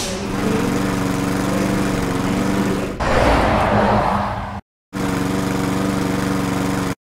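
Dubbed-in motor vehicle engine sound effect, a steady idling-type hum; about three seconds in a louder rushing noise rises over it and fades. The sound cuts out abruptly near the five-second mark, then a similar steady engine hum runs again and stops suddenly just before the end.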